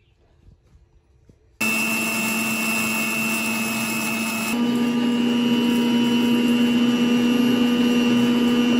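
Electric mixer grinder with a stainless steel jar switched on, its motor running at high speed with a steady whine while grinding spices. About a second and a half in it starts suddenly; a few seconds later the pitch steps up slightly and it gets a little louder, then it cuts off.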